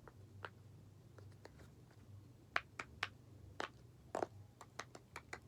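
Bubbles of a silicone pop-it fidget toy being pressed through one after another: irregular soft popping clicks, a few at first, then coming faster about halfway through.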